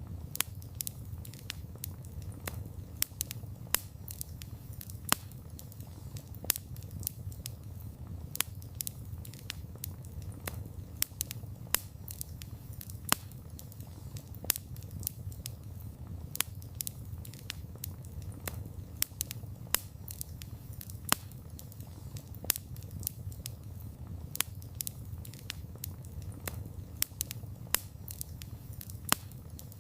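Wood campfire burning, with sharp irregular crackles and pops several times a second over a steady low rumble of the flames.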